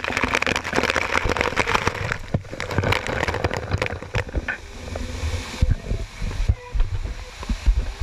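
Waterfall water pounding and splashing right on the microphone, a dense crackle of spray hits. About five seconds in the rush falls away, leaving scattered knocks and thumps.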